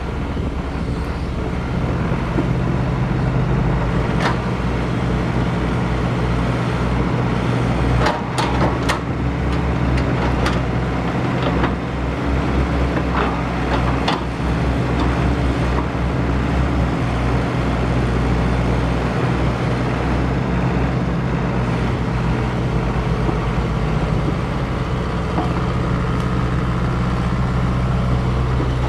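Double E 561 remote-control toy excavator running with a steady low engine-like hum, broken by a few sharp clicks in the first half.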